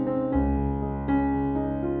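Background piano music. A deep bass note comes in about a third of a second in, and another chord sounds just after a second.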